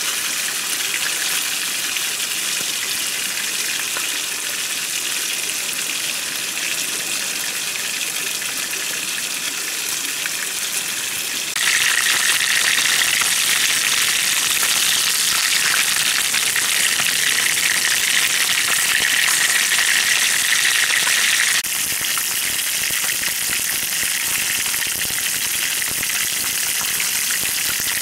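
Fish frying in oil in a nonstick pan on a portable gas stove: a steady sizzling hiss, louder for about ten seconds in the middle.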